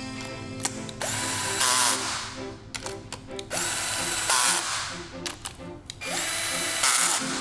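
A Craftsman cordless drill/driver with a socket runs bolts into an aluminium transfer case housing in three short bursts, about a second each. Quick clicking comes between the bursts.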